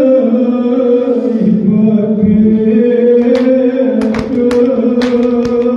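Men chanting a noha, a Shia lament, led on a microphone and moving slowly between long held notes. From about three seconds in, sharp irregular slaps cut through the chant: hands beating on chests in matam.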